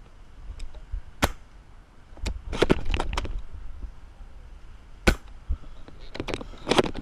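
Airsoft guns firing in sharp pops: single shots about a second in and about five seconds in, and quick strings of several shots around two to three seconds in and near the end.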